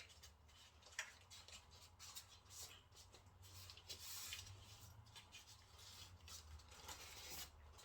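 Near silence: faint rustles and light clicks of hands working with dough and its packaging, over a low steady hum.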